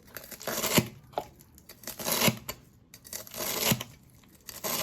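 Kitchen knife cutting through tough, fibrous celery roots on a chopping board, four slow strokes about a second and a half apart. Each is a crunchy tear ending in a knock of the blade on the board; the old roots take effort to cut.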